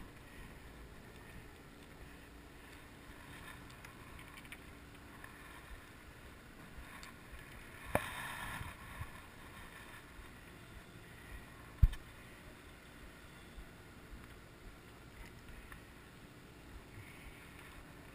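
Faint, steady boat ambience on deck. About eight seconds in there is a brief rustle with a click, and about four seconds later one sharp knock, the loudest sound.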